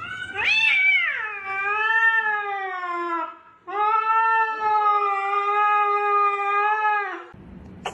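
A domestic cat giving two long, drawn-out yowling meows, each about three seconds, with a short break between them. The first rises and then slides down in pitch; the second holds steady and drops at the end.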